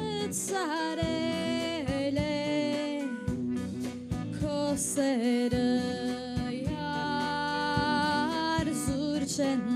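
A live band plays: a woman sings a melody with long held, bending notes, backed by keyboard, electric guitar, bass guitar and drums.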